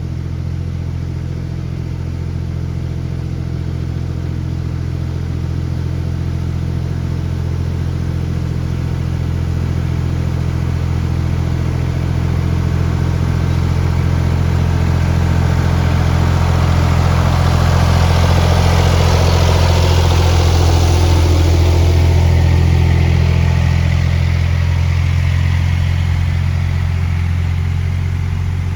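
Farm tractor engine running steadily under load while it pulls a blade through loose sand to regrade a washed-out dirt road. It grows louder and rougher about two-thirds of the way through, then eases off toward the end.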